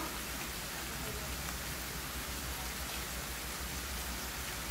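Pieces of pork sizzling steadily in oil and juices in a frying pan, an even crackling hiss of frying.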